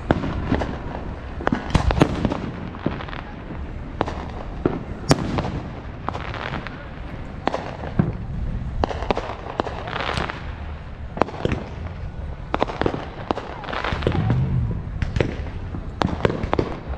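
Fireworks going off: many sharp bangs and pops at irregular intervals, sometimes several a second.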